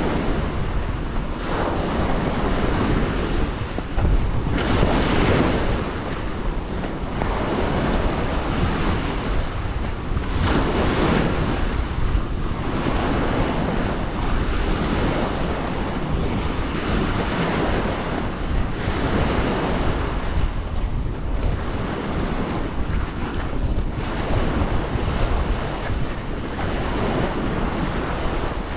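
Small waves breaking and washing up onto the sand at the water's edge, swelling and fading every few seconds, with wind buffeting the microphone.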